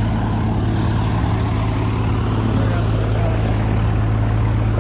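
Steady low drone of an engine running, unchanging throughout.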